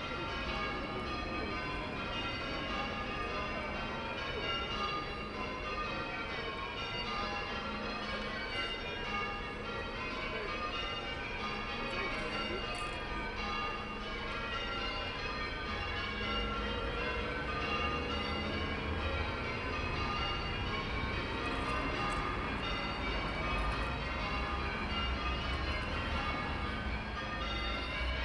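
Church tower bells being rung in change ringing. The bells are struck one after another in an even, continuous rolling rhythm, with the order changing from row to row.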